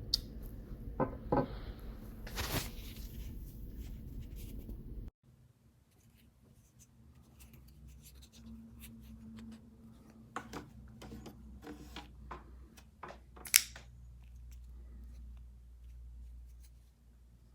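Folding knife being handled: scattered sharp clicks and rubbing from the blade and aluminum handle. A steady background hiss cuts off abruptly about five seconds in, and the clicks return in a quick run near the end.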